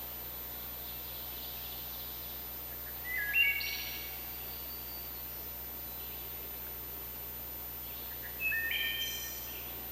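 A songbird sings twice, each phrase a short series of clear whistled notes stepping upward in pitch, the first about three seconds in and the second near the end, over a steady outdoor background hiss.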